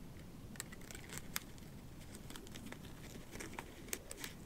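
Faint rustling of paper pages and a leather notebook cover being handled, with a few light ticks and clicks, the sharpest about a second and a half in, as a thick paper journal is fitted into a leather traveler's notebook cover under its elastic cord.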